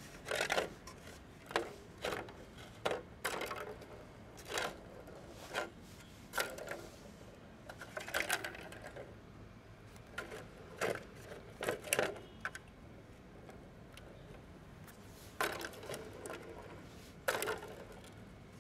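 A cat batting the balls round the tracks of a three-tier plastic ball-track cat toy: irregular bursts of rattling plastic clicks, with a short pause in the middle.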